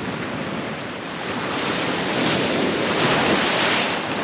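Ocean surf washing in over shallow reef, one wave swelling up about halfway through and falling away near the end.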